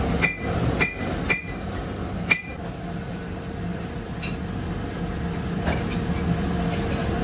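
Four sharp metal-on-metal clinks, each ringing briefly, in the first two and a half seconds, over a steady machine hum.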